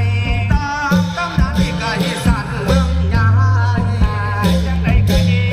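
Lively Isan festival music from a klong yao long-drum troupe's band: a steady drum beat under sustained bass notes and a wavering melody line.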